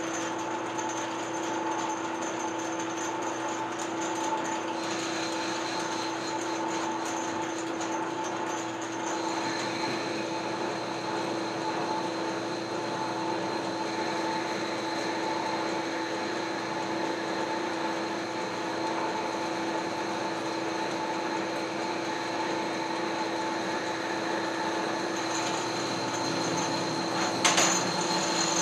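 Metalworking machine tool running steadily, its motor and spindle giving a hum made of several steady tones. A higher whine joins about five seconds in, and a single sharp click comes near the end.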